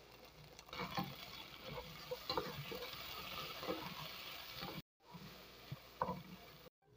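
Sliced bell peppers and onions sizzling in oil in a pot while a wooden spatula stirs tomato paste through them. The spatula knocks against the pot several times.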